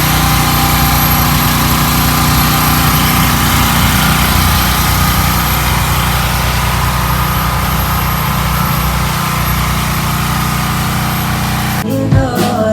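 Generator engine running steadily, loud and close. Music starts suddenly about a second before the end.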